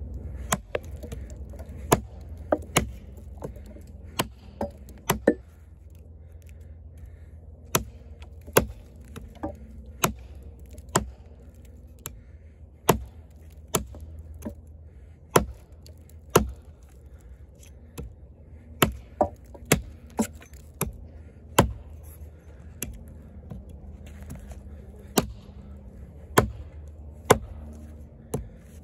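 Kobalt 14-inch camp axe, with a 1.25 lb head on a hickory handle, chopping into a log: a run of sharp wooden chops, roughly one a second, with a couple of short pauses.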